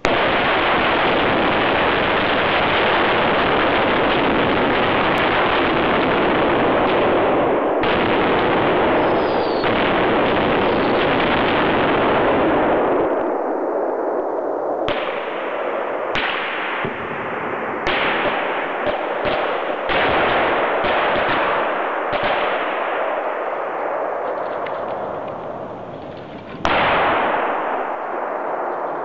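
A large fire catching all at once as a flare sets it off: a loud, dense rushing noise that starts suddenly and holds steady for about thirteen seconds. It then thins and flickers, broken by a series of sharp cracks, and surges again near the end.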